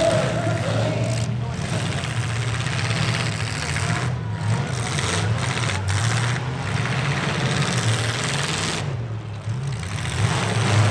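Engines of several battered demolition-derby pickup trucks running and revving up and down together, with a steady noisy roar over them. The roar eases briefly about nine seconds in, then comes back.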